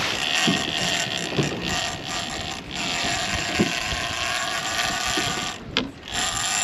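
Boat motor running steadily under wind and water noise, with a brief drop in level near the end.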